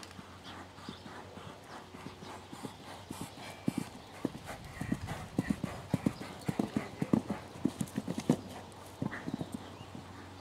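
Horse's hoofbeats thudding on a sand arena surface as a grey horse is ridden around the school. The beats come in irregularly, grow louder about a third of the way in, and thin out near the end.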